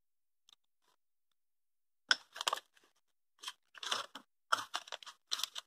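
Packing paper crinkling and rustling in the hands in short, irregular crackles as kit parts are unwrapped and handled, starting about two seconds in.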